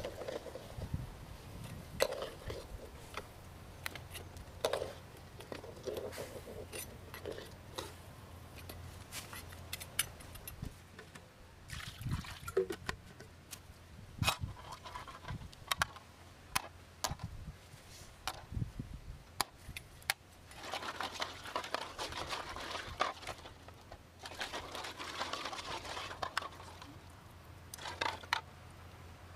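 Water sloshing in a metal wok around eggs, with many sharp clicks and knocks of a metal spoon and eggshells against the wok. Two longer stretches of splashing come in the second half.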